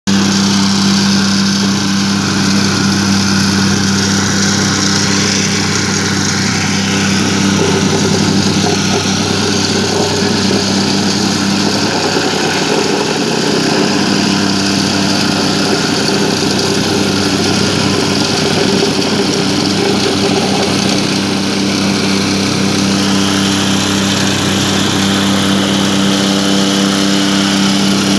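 Vibratory plate compactor running steadily, its small petrol engine holding a constant working speed while the plate vibrates over loose crushed-stone sub-base, compacting it.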